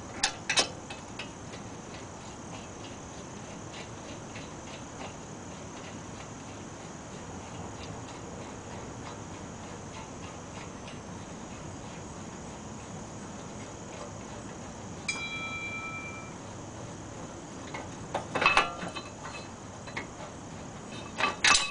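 Socket ratchet clicking a few times at the start on the brake caliper mounting bracket bolts, then a long stretch of steady background hiss. A short beep comes about 15 seconds in, and metallic clinks of the bolts and bracket being handled come near the end, the loudest sounds in the stretch.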